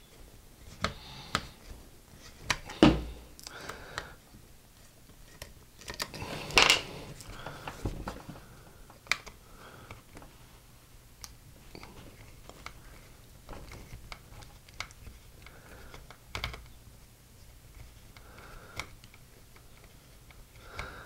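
Scattered small clicks and knocks of a Phillips screwdriver working screws out of a hot air rework station's plastic wand and of the wand being handled, with louder knocks about three and seven seconds in.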